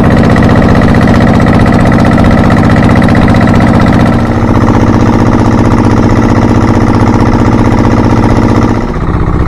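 A small fishing boat's engine running loud and steady, with a shift in its note about four seconds in and again near the end.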